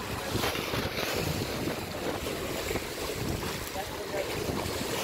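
Choppy river waves washing and splashing against a muddy bank, with wind blowing across the microphone.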